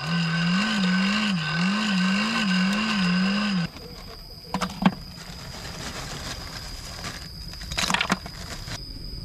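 Hand-cranked fire blower whining as it forces air under a coconut-shell fire, its pitch wavering up and down with each turn of the crank; it stops suddenly a few seconds in. Then comes a sharp knock, and near the end a short clatter as charcoal is tipped onto the fire.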